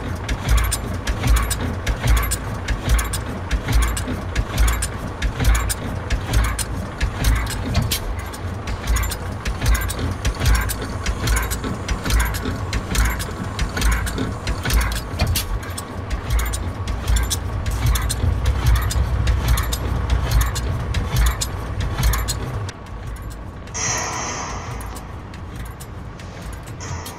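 Stationary flywheel engine running with a steady, even beat of knocks. The beat stops near the end and a short hiss follows.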